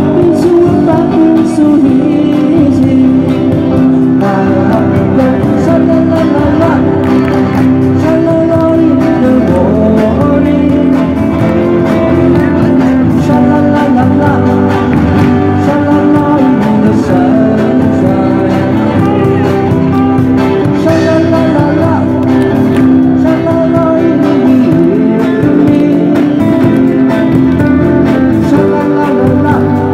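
Live amplified band playing an old pop song: electric guitars and a drum kit, with a singer's voice carrying the melody.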